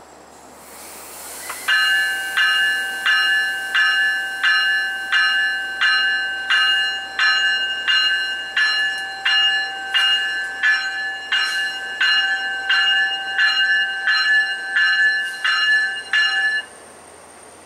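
A Long Island Rail Road diesel locomotive's bell rings steadily, about one and a half strikes a second, as the train starts to pull out of the station; this is the usual departure warning. It starts about two seconds in and stops about a second before the end.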